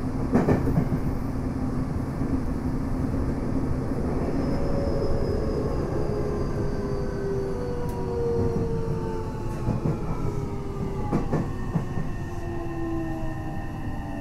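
Tokyo Metro 7000 series electric train heard from inside the car: the whine of its Hitachi IGBT inverter and traction motors falls slowly in pitch as the train slows. Underneath is a steady wheel-and-rail rumble, with a few sharp rail-joint clicks.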